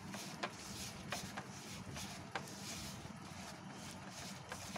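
Fingers mixing and pressing a crumbly coconut and milk-powder dough in a plastic bowl: faint soft rubbing with a few light clicks, over a steady low hum.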